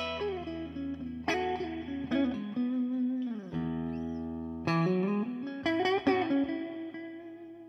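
Clean electric guitar played through an amp on a semi-hollow guitar with Stonewall Slutty Wolf H90 humbucker-sized P90 pickups, neck and bridge together in the middle position: picked notes and chords, some sliding in pitch, each left to ring and fade.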